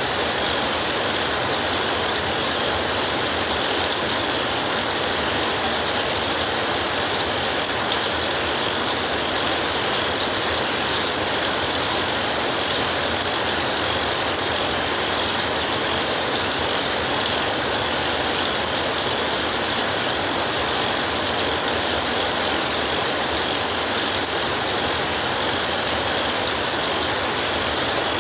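Heavy rain falling in a steady, dense hiss that doesn't rise or fall.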